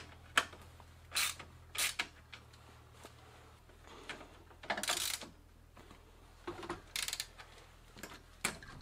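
Irregular metallic clicks and clinks of a wrench being fitted to and turned on the clamp nut of a Brooks B66S leather saddle, with one longer, louder noise about five seconds in.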